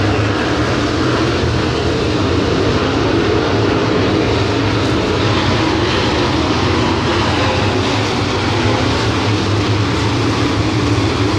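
A pack of dirt late model race cars running their V8 engines at racing speed, heard as one loud, steady, blended drone of many engines with no single car standing out.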